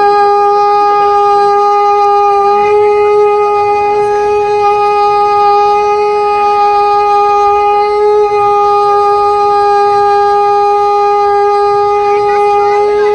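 Conch shell (shankha) blown in one long, unbroken note at a steady pitch, rich in overtones.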